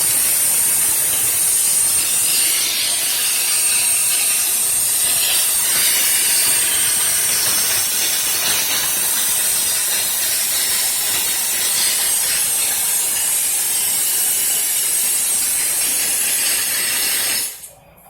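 Air rushing out of a fire sprinkler system's open inspector's test port in a steady loud hiss with a thin high whistle. The pipes are still blowing out air ahead of the water that has not yet reached the end of the system. The hiss cuts off abruptly near the end.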